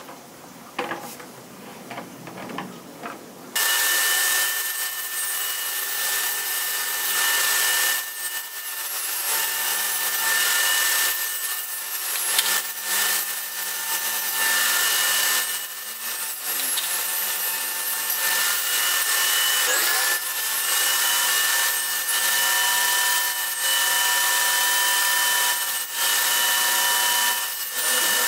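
Stanley table saw switched on about three and a half seconds in, then running steadily with a constant whine while the blade cuts through a large sheet of board. The load on the blade shifts briefly now and then.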